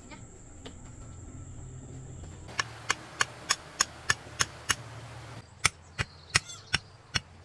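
A blade chopping in quick, regular strokes, about three a second, starting a couple of seconds in and picking up again after a short break.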